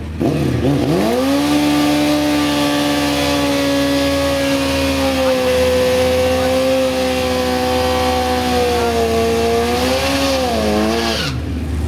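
Sport motorcycle doing a burnout. The engine revs up sharply in the first second and holds steady at high revs for about ten seconds while the rear tyre spins, wavers near the end, then drops off suddenly.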